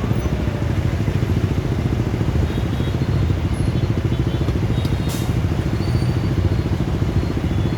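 Motorbike engines running in a crowd of traffic, a steady low rumble with a rapid pulse, with a brief hiss about five seconds in.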